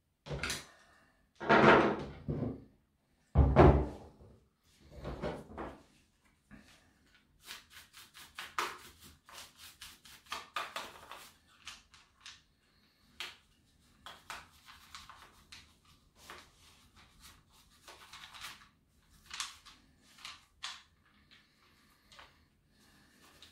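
A chainsaw's plastic recoil-starter cover being prised off and lifted away, with several loud plastic clunks in the first five seconds. Then a bristle paintbrush scrubs dust from the cover's air-intake grille in quick, scratchy strokes.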